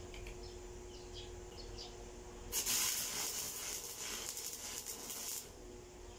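Electric arc welding on a steel pipe post: the arc strikes about two and a half seconds in, crackles and sizzles for about three seconds, then breaks off.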